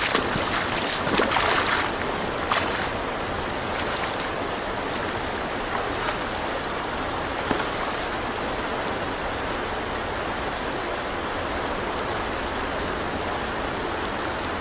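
Shallow stream running steadily over rocks in a riffle, a continuous rushing of water. A few brief louder bursts of noise come in the first two seconds.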